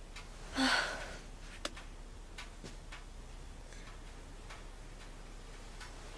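A clock ticking faintly, with a single breathy sigh from a sleeping woman about half a second in.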